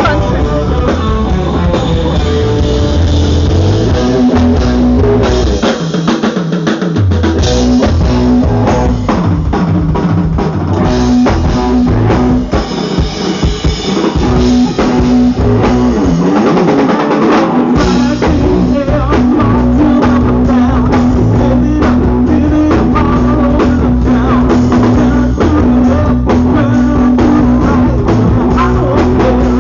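Rock band playing with drum kit, guitar and bass. The low end drops out briefly three times in the first half, then a held guitar note rings over the steady drumming.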